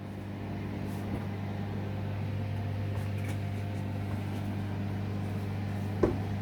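Microwave oven running on its preheat cycle, a steady low electrical hum. A short knock near the end.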